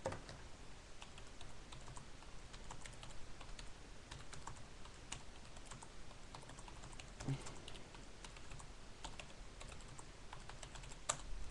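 Light, irregular clicking of a computer keyboard being typed on, with one sharper click near the end.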